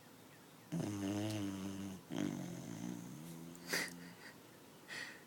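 A sleeping Beagle-English Bulldog mix puppy snoring: starting about a second in, three long, rattling, pitched snoring breaths follow one another, with a short sharp noise near the end.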